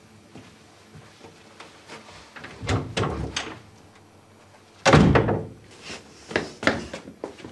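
A door being handled with a few clicks and rattles, then slammed shut about five seconds in with a heavy bang. Lighter knocks and clatters follow near the end.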